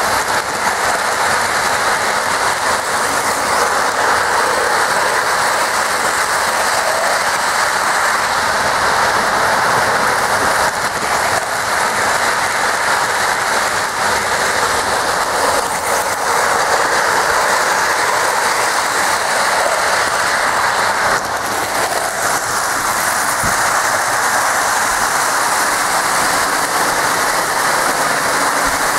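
Lionel O-gauge model trains running on three-rail track: a steady rolling rumble of metal wheels and motors on the rails.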